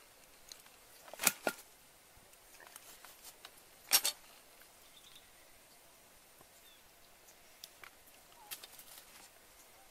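Quiet outdoor background broken by a few short, sharp crackles, the two loudest about a second in and about four seconds in, with smaller ones near the end.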